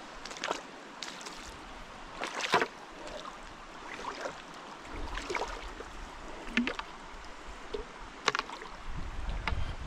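Irregular footsteps crunching and knocking over rocks and through brush, about eight uneven steps, over a steady rush of river water. A low wind rumble on the microphone builds near the end.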